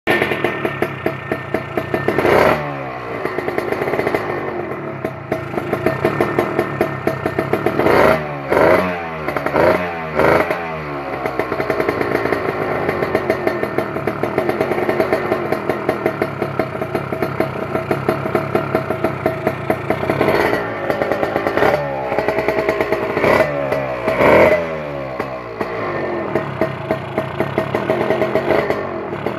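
Suzuki X3 motorcycle engine with an aftermarket RF Pipes exhaust idling, its throttle blipped about nine times, each rev rising sharply and falling back to idle. The blips come once early, in a quick cluster of four a third of the way in, and in another cluster about two thirds of the way in.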